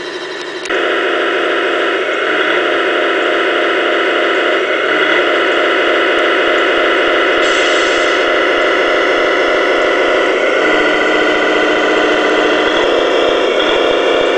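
Simulated big-rig diesel engine sound from a 1/14-scale RC truck's sound module. It runs steadily, steps up in level about a second in, and changes pitch a few times as the truck drives.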